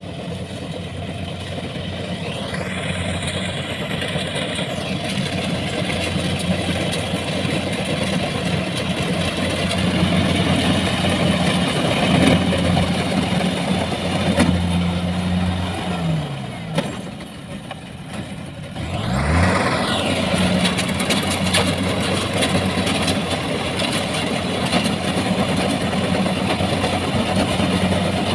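Rice harvester's engine running steadily. About sixteen seconds in its pitch falls as it slows down, and a few seconds later it revs back up and runs on.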